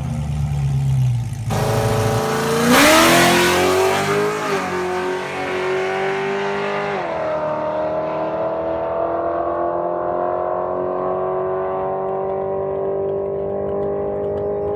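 A 2008 Corvette's LS3 V8, fitted with long-tube headers and a catless open X-pipe, runs low at the line and then launches hard about a second and a half in. The exhaust note climbs steeply and the automatic upshifts as the car pulls away down the drag strip. The sound grows duller with distance and cuts off suddenly at the end.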